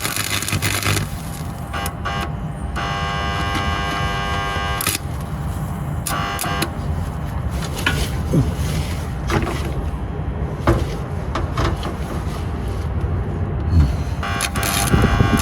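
A buzzing, whining metalworking power tool used on rusted car bodywork. It runs in several bursts that start and stop, with sharp cracks and clicks between them over a steady low rumble.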